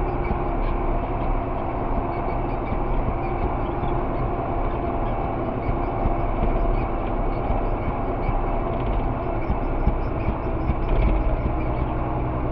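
Farm tractor's diesel engine running steadily under way, heard from inside the cab as a constant low rumble and drone.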